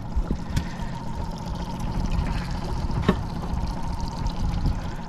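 Water sloshing and gurgling against a moving boat's aluminium hull at the stern, over a steady outboard motor hum at trolling speed. Two short knocks about half a second and three seconds in.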